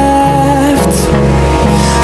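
Background music: held melody notes over a bass line that changes note about twice a second.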